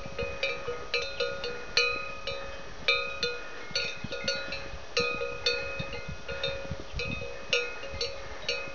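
Bells on grazing livestock clanking irregularly, several strokes a second at a couple of different pitches, each ringing on briefly.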